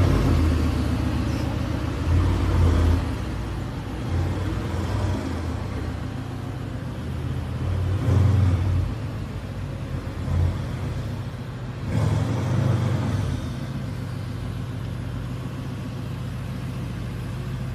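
Mercedes-AMG GT R's twin-turbo V8 running at low speed as the car pulls away, a deep rumble with several short throttle blips, the last about twelve seconds in, then settling to a steady burble.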